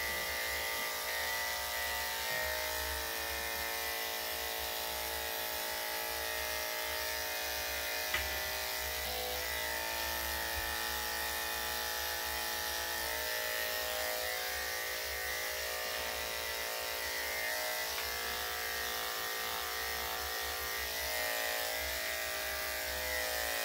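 Corded electric dog grooming clippers fitted with a #10 blade, running steadily as they shave a dog's coat short, with an even buzzing hum. A single short click sounds about 8 seconds in.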